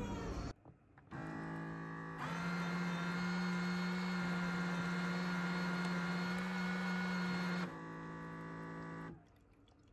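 Baby Brezza formula-making machine running as it fills a baby bottle: a steady mechanical hum that starts about a second in, grows louder and noisier for about five seconds while it dispenses, drops back to the plain hum, and stops about nine seconds in.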